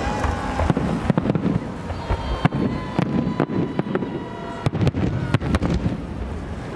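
Fireworks salute shells bursting: a rapid string of sharp bangs, thickest about a second in and again about five seconds in.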